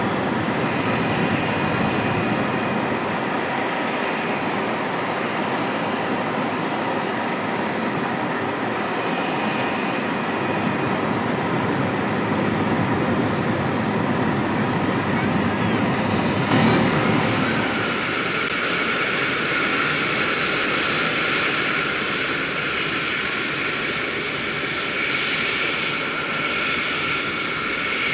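Airbus A320 jet engines running at taxi idle: a steady rushing noise, changing abruptly about two-thirds of the way through to a steady high-pitched whine.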